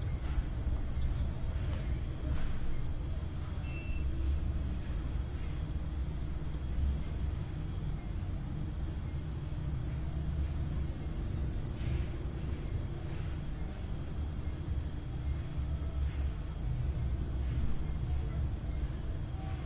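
Insect chirping in regular short high-pitched pulses, about two a second, over a steady low rumble of room noise.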